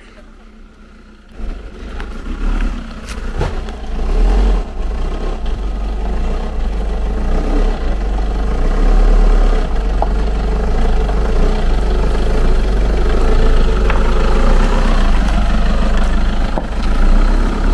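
Toyota Innova's engine labouring up a rough dirt track under load, starting about a second and a half in and growing louder, with a deep, steady rumble throughout.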